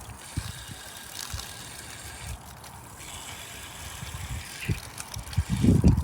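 Pressure washer in use: a steady hiss with a faint machine hum, dropping briefly about two and a half seconds in, with low rumbling gusts near the end.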